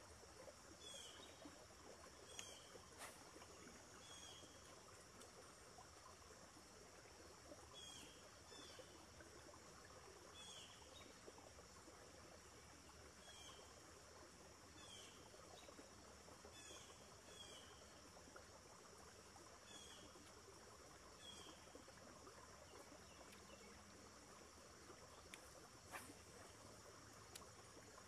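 Near silence: faint outdoor ambience of a steady high-pitched insect drone, with short chirps repeating every second or two and a faint click or two.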